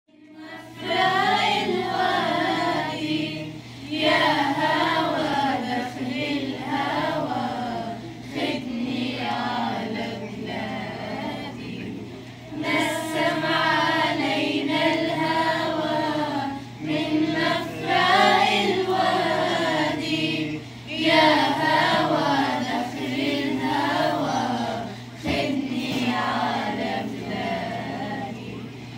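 A group of children singing a song together, in phrases of a few seconds each with short breaks between them.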